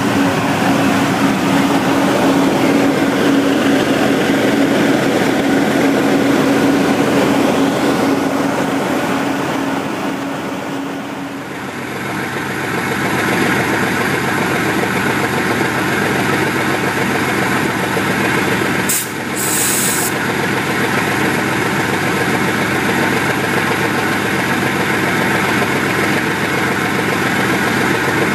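GE U23B diesel-electric locomotive's 12-cylinder FDL engine running steadily at heavy load during a self-load test, its output burned off on the load box. A steady whine rides over the engine for roughly the first ten seconds, heard close to the engine-compartment grille; after that the engine is heard from outside the locomotive, with a brief dropout about two-thirds through.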